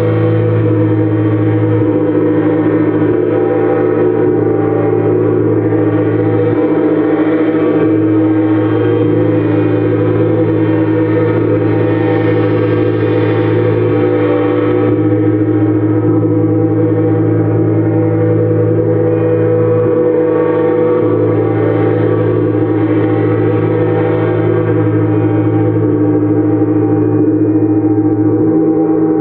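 Gongs sounding in a steady, continuous wash of many overlapping ringing tones, with no single loud strikes or pauses.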